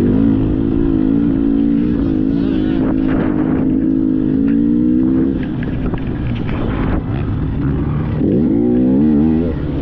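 Dirt bike engine running, its pitch shifting with the throttle, dropping and then climbing again near the end.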